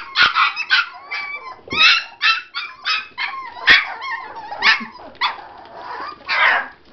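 Cairn terrier puppies yapping, a quick run of short high-pitched yips one after another: hungry pups clamouring to be fed.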